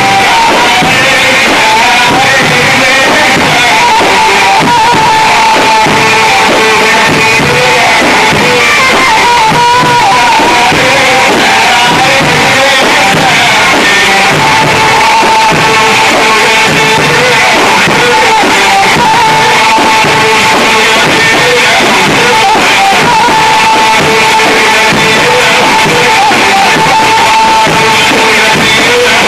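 Loud Egyptian bambouti folk dance music with a plucked string instrument and singing, running steadily without a break.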